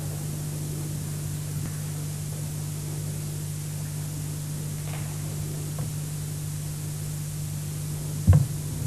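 Steady low hum over an even background hiss, with a single thud about eight seconds in.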